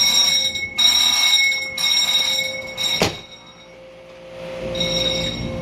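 Fire alarm sounding in loud high-pitched tones about a second long with short breaks between them, set off by opening an alarmed emergency exit door. A sharp click comes about three seconds in, and the alarm is fainter afterwards, coming back more quietly near the end.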